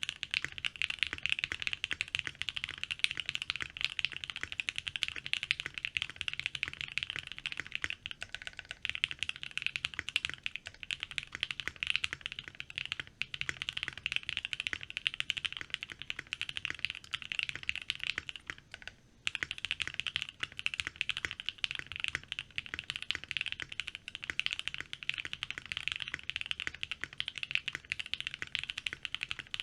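Continuous typing on a Think6.5 V2 mechanical keyboard with lubed, filmed C3 Tangerine linear switches and ePBT keycaps, tape-modded and fitted with PORON switch pads, which give the keystrokes a creamy sound with the high pitch slightly lessened. The typing stops for a moment about nineteen seconds in, then carries on.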